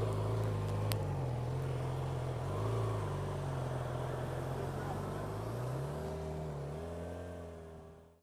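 A vehicle engine running, its revs rising and falling gently a few times, then fading out near the end.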